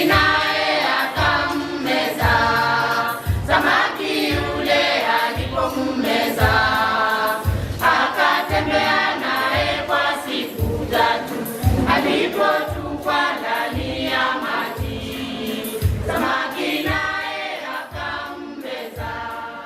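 A choir singing a gospel song over a steady beat, fading out near the end.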